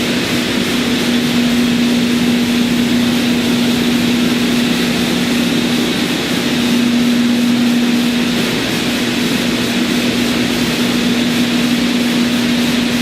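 Centerless grinder running steadily: an unchanging motor hum with a constant hiss over it.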